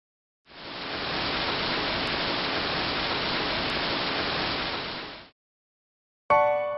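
A steady rush of static-like hiss fades in about half a second in, holds for about five seconds and cuts off abruptly. About a second later a piano chord is struck and rings.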